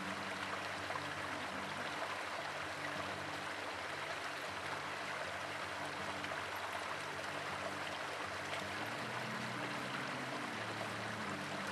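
Shallow mountain stream running over rocks in a steady, even rush, with faint low tones underneath.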